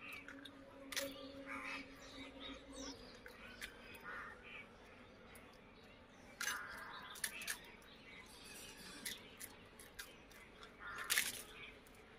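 Crows cawing a few short times in the background, the loudest calls near the middle and near the end, over the faint sounds of people eating rice with their hands.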